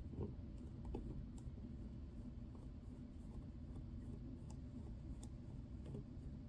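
Faint clicks and light scratching of small watch-repair tools working on a watch movement, a few scattered ticks over a low, steady hum.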